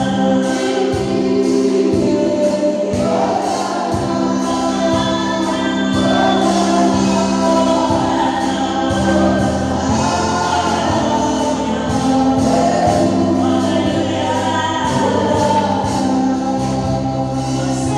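Gospel music: a choir singing over held bass notes and a steady beat.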